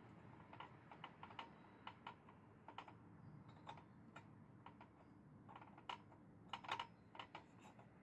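Faint, irregular metallic clicks and taps as molten aluminium and dross are poured from a steel ladle into a steel muffin tin, with a cluster of louder clicks near the end.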